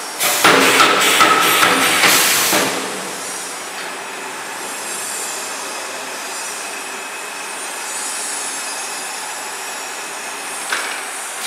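Steel mesh grid welding machine running. A burst of hissing and metal clanks comes in the first two or three seconds, then a steady rolling hiss as the mesh frame carriage moves along its rail conveyor, with one sharp clank near the end.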